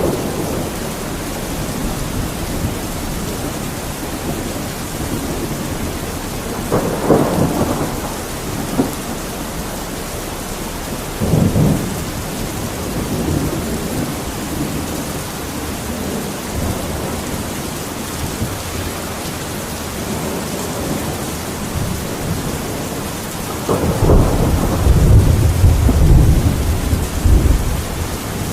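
Steady rain falling during a thunderstorm, with thunder rumbling now and then: a short roll about seven seconds in, another around eleven seconds, and a longer, louder rumble from about twenty-four seconds to near the end.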